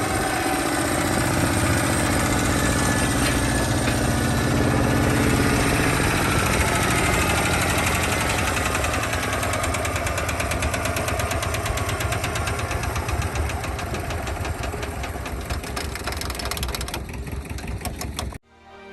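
1969 Iseki KD900 diesel hand tractor's engine running with a steady, even knocking beat, growing gradually fainter, then cut off abruptly near the end.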